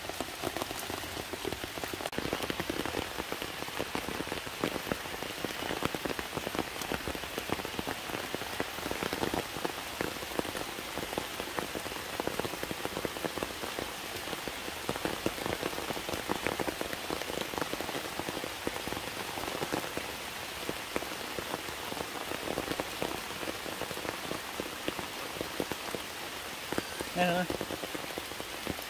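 Heavy rain falling steadily on leaves and rock, with many separate drops striking close by. A short vocal sound cuts through near the end.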